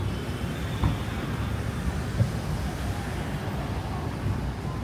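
Steady outdoor traffic rumble and street noise, with a couple of light knocks about one and two seconds in.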